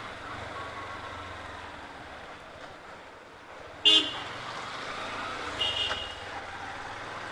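Bajaj Platina 100cc single-cylinder four-stroke motorcycle engine running steadily under way. A horn gives a short, loud beep about four seconds in, and beeps again more weakly a second and a half later.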